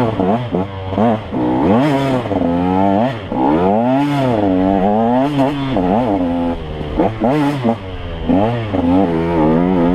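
Dirt bike engine revving up and down over and over: its pitch rises and falls every second or so as the throttle is worked riding the trail.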